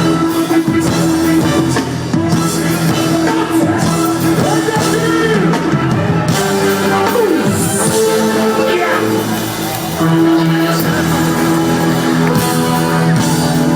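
A live reggae band playing, with held bass notes under guitar and drums.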